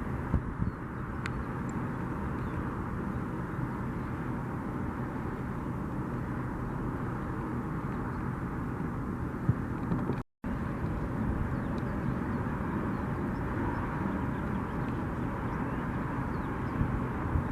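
Jet aircraft engines running with a steady, even noise, broken by a split-second silence about ten seconds in.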